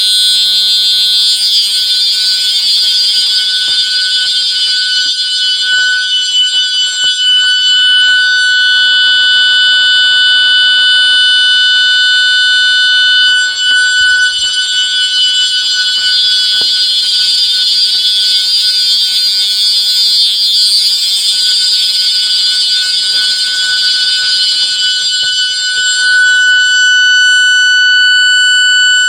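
Electronic security sirens sounding together on their steady-tone setting: a loud, continuous high-pitched tone that holds level without sweeping or warbling.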